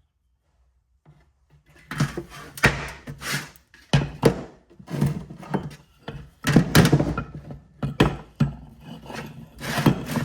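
Hammer blows driving a bearing out of a Polaris ATV front differential housing: a string of sharp metal strikes, about one or two a second, starting about two seconds in.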